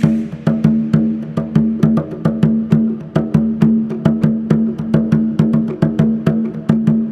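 Percussion music: quick, rhythmic strikes on a wooden percussion instrument, about four a second, over a steady low drone.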